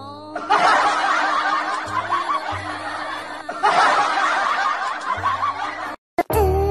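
A crowd laughing, in two long bursts of many voices, with music underneath; after a short break near the end, a new tune starts.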